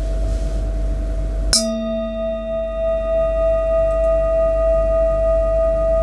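Metal singing bowl ringing with a steady tone, struck once about a second and a half in, then ringing on with several higher overtones and a slow, pulsing waver in its loudness.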